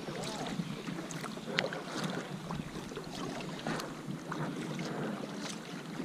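Kayak gliding through water while trolling: irregular small paddle splashes and water lapping against the plastic hull, with wind on the microphone.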